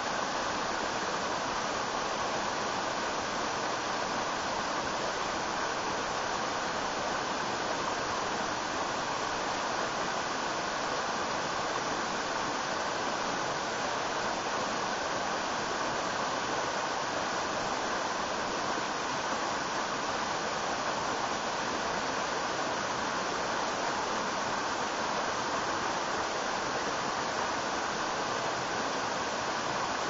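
Small river waterfall: water rushing steadily over a rock ledge and splashing into a pool.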